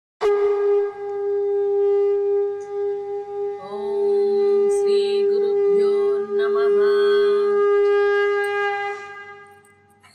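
A conch shell (shankha) blown in one long, steady note. It starts abruptly and fades away near the end. From about four seconds in until nearly eight, a second, wavering pitched sound is layered over it.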